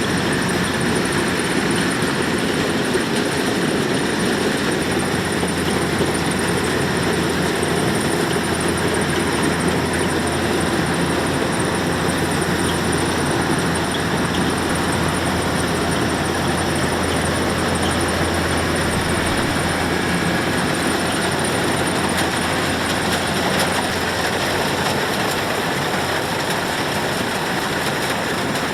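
Kubota DC-105X rice combine harvester running steadily, its diesel engine and machinery making a constant mechanical drone with a low hum that strengthens somewhat in the middle.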